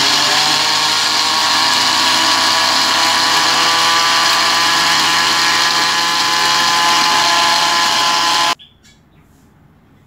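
Electric countertop blender running steadily at speed while grinding dried eggshells into powder, a motor whine over a dense grinding hiss. It is switched off about 8.5 seconds in and stops abruptly.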